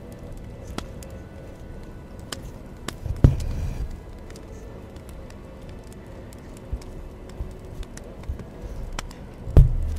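Hand embroidery on fabric stretched in a wooden hoop: faint scratches and clicks of a needle and green floss passing through the taut cloth, with two louder dull thumps, about three seconds in and again near the end.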